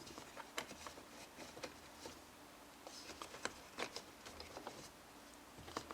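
Faint, scattered clicks and light taps of small grinder parts being handled and seated in the burr chamber of a Breville Barista Express during reassembly.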